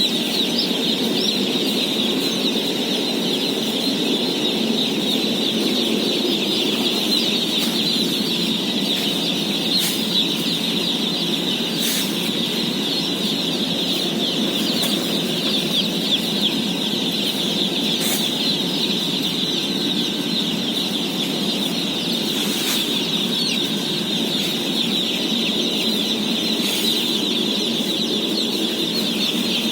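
A huge flock of day-old chicks peeping all at once in a dense, steady chorus of high chirps, with a few faint knocks now and then.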